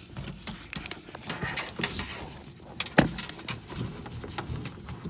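Hands handling a wire and plastic zip ties against the factory wiring harness and interior trim: scattered light clicks and knocks, with one sharper knock about three seconds in.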